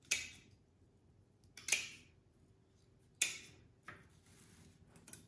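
Rosemary leaves being stripped by hand off a woody stem: four short, sharp rasps a second or so apart, the last one fainter.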